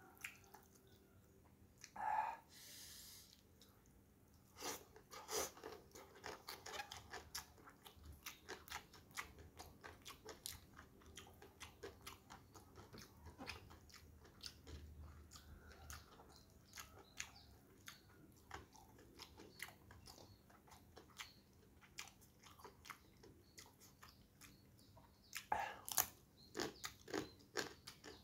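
Close-miked chewing and crunching of a hand-eaten meal of rice, spinach and crispy fried dried salted fish (gereh), made up of many small crisp crunches and mouth clicks. A louder run of crunches comes near the end.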